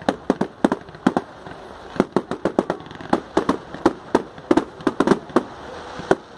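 Fireworks going off in a rapid, irregular string of sharp bangs, about four a second, with a brief lull about a second in.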